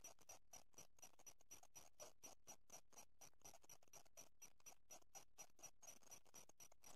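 Near silence: faint hiss that flutters in a fast, even pulse.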